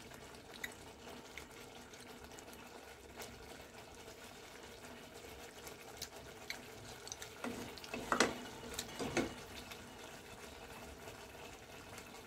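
Thick tomato-based chicken sauce simmering in a pot on a gas burner, bubbling with scattered soft pops, and a few louder plops about eight to nine seconds in.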